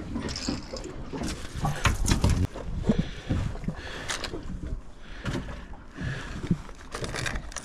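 Wind rumbling on the microphone and water slapping against a small boat, with scattered clicks and knocks from gear being handled on board, including a plastic lure box being opened and picked through.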